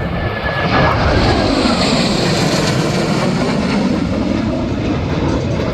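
Blue Angels F/A-18 Hornet jets passing overhead: loud, steady jet-engine noise that sinks slightly in pitch as they go by.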